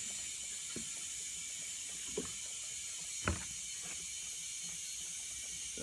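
Steady hiss of compressed air flowing through the air hose and clip-on chuck into a tire as it is aired up. A few soft knocks are heard over it, the loudest about three seconds in when the plastic jug of soapy water is set down on the concrete floor.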